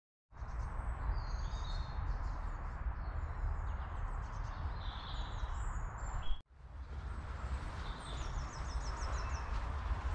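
Outdoor woodland ambience: a steady low rumble of wind on the microphone with small birds chirping and twittering. A short break about six seconds in, where the sound cuts out for a moment.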